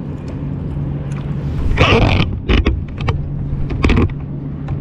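A steady low motor hum, with a short rushing noise about two seconds in and a few sharp knocks after it.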